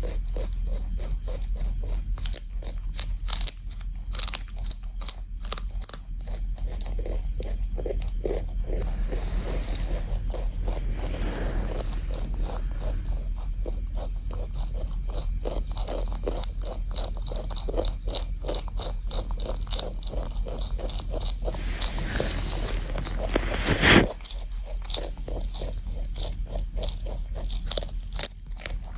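Rabbit chewing celery: rapid, steady crunching of the crisp stalk, with a louder crunching swell about three-quarters of the way through.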